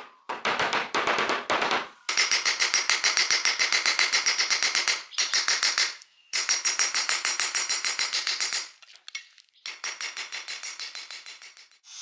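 Fast rhythmic scraping strokes on the knife work, about seven a second, in bursts of a few seconds broken by short pauses.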